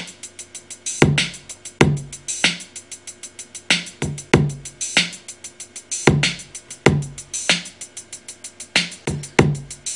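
Programmed hip-hop drum loop playing back from Native Instruments Maschine: kick and snare hits over a fast, even run of hi-hat ticks, with open hi-hats placed in the pattern.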